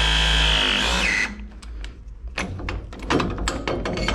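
A power tool's motor running steadily, then winding down with a falling whine about a second in, followed by a run of irregular clicks and knocks of tools and metal being handled.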